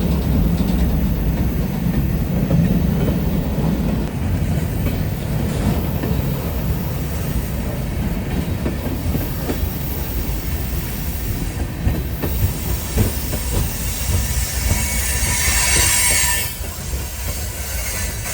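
Freight cars of a heavy train rolling past on a curve: a steady low rumble of wheels on rail with scattered clicks. Wheel flange squeal rises about fifteen seconds in and cuts off a little later.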